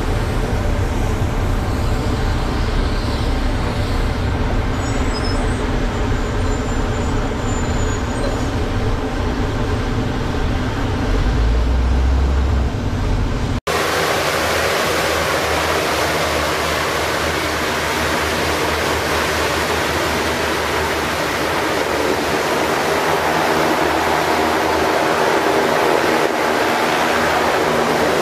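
A large six-wheel military cargo truck's diesel engine running with a low rumble. About halfway through, it cuts to the steady roar of an LCAC air-cushion landing craft's gas turbines, lift fans and ducted propellers as it moves across the shore.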